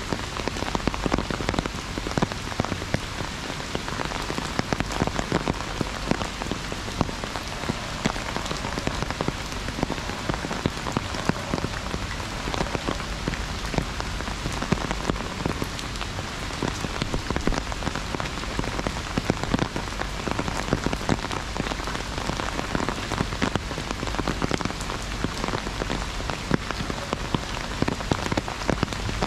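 Heavy rain falling on an umbrella: a steady, dense mass of individual drop hits with no let-up.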